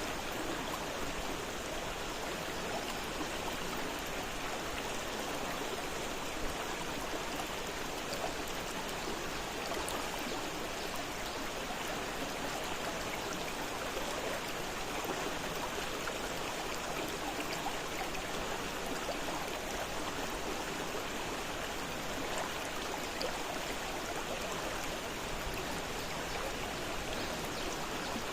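Fast-flowing river rushing over rocks: a steady, even roar of water with small splashes and gurgles scattered through it.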